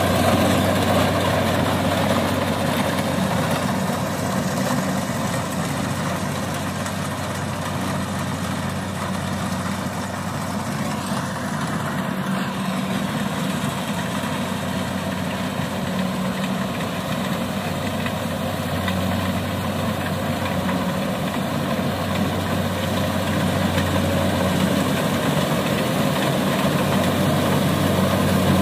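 Kubota DC70 rice combine harvester's diesel engine running steadily under load as it cuts and threshes rice, a constant low hum with mechanical clatter. It gets somewhat quieter in the middle as the machine moves farther off and louder again near the end as it comes close.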